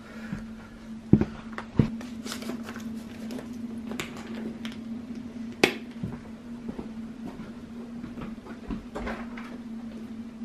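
Household handling noises: scattered knocks, clicks and light rustles of objects being moved, with three sharper knocks standing out, over a steady low hum.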